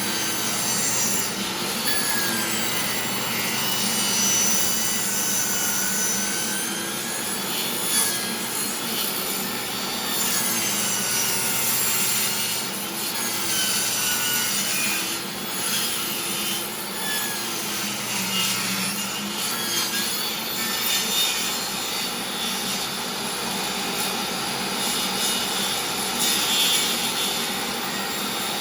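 DeWalt table saw running, its blade cutting into the face of a board turned over it on a circle-cutting jig: a steady mix of motor hum and sawing noise, with slight rises and falls in pitch as the load changes.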